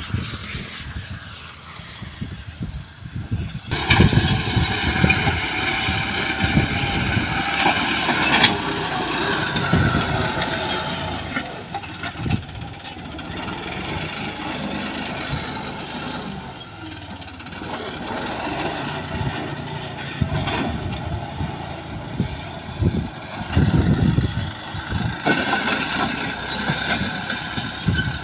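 A John Deere tractor's diesel engine running under load as it drags a disc plough through dry ground. The engine note drifts up and down and gets louder about four seconds in.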